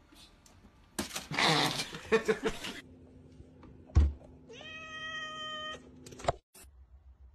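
A domestic cat giving one drawn-out, steady-pitched meow a little past the middle, shortly after a sharp thump. Before that comes a loud rushing noise of about two seconds.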